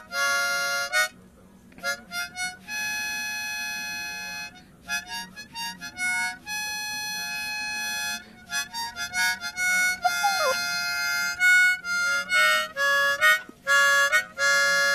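Harmonica playing short chords and held notes, with a dog briefly howling along: one short falling howl about ten seconds in.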